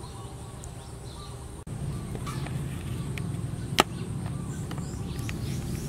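Outdoor background: a steady low hum with faint bird chirps, which cuts out briefly about a second and a half in and comes back louder. A single sharp click about two-thirds of the way through.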